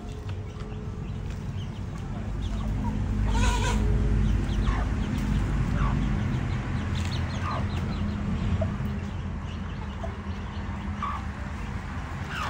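Large pot boiling hard over a wood fire, a steady low rumble that swells for a few seconds about a third of the way in. Short hen-like calls come through every second or so, the strongest about three and a half seconds in.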